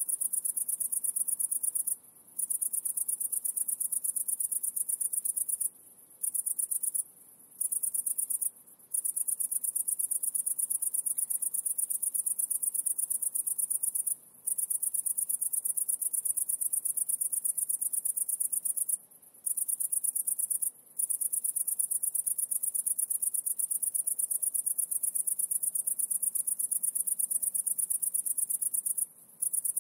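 A high-pitched insect trill made of very fast pulses, running almost without a break and stopping briefly several times.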